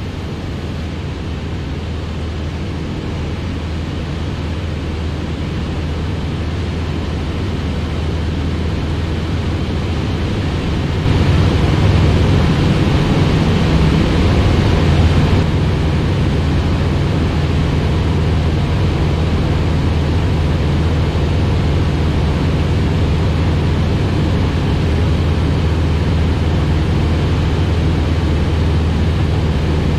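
Engine and propeller of a single-engine piston light airplane, heard as a steady drone inside the cabin in flight. It gets louder about eleven seconds in and stays at that level.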